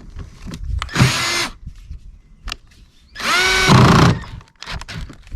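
Power drill run in two short bursts, each spinning up quickly and held for about half a second, the second one longer and louder; light clicks and knocks of handling between them.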